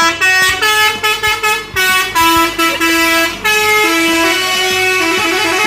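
Multi-tone musical vehicle horn playing a melody: a run of short notes stepping up and down, then longer held notes.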